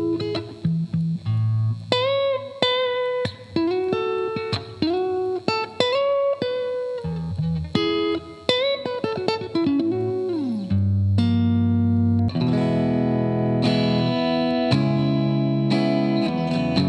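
A Squier Affinity Telecaster electric guitar playing single-note lead lines with string bends, then switching about ten seconds in to fuller, sustained chords.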